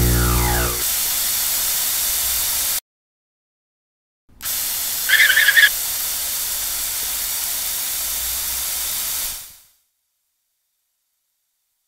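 Steady hiss of water spraying from a garden hose spray nozzle, opening with a short sweeping tone. The hiss stops for about a second and a half, comes back with a brief bright twinkle about five seconds in, and fades out a couple of seconds before the end.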